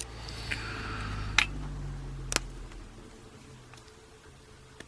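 An Evva euro cylinder lock being handled as a pinning shoe is pushed in to drive out the core: two sharp clicks over a low rumble of handling. The core does not come out.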